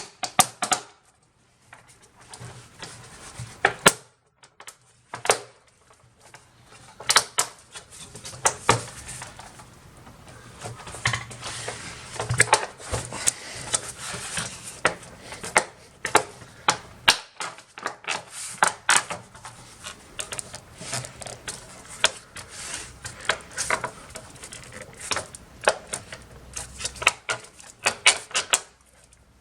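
Plastic back cover of a Lenovo ThinkCentre Edge 72z all-in-one computer being pressed and snapped into place, giving many irregular sharp clicks and knocks with a few short pauses.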